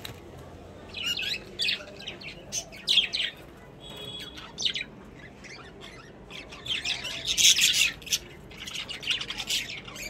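Budgerigars chirping and squawking in short, scattered high calls, busiest and loudest about seven to eight seconds in.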